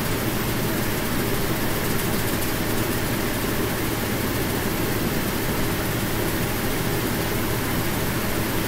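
Steady room noise: an even low rushing with hiss above it, unchanging throughout.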